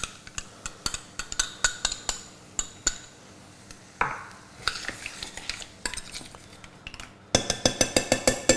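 A metal spoon stirring and scraping in a stainless steel pan of mussels and prawns in coconut milk, with scattered clinks and knocks and a fast run of clinks near the end.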